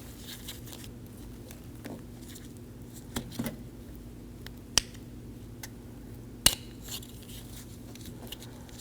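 Small flat-blade screwdriver prying at a plastic lock cylinder cover on a car door handle: a few scattered light clicks and taps, the sharpest about six and a half seconds in.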